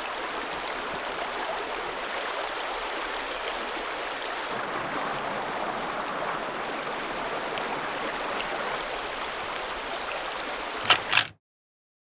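River water rushing and gurgling steadily. Near the end come two sharp knocks, then the sound cuts off to silence.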